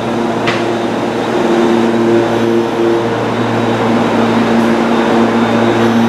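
Meitetsu 2000-series μSKY electric train creeping into the platform to couple onto a waiting set: a steady electric hum made of several held tones, with a short click about half a second in.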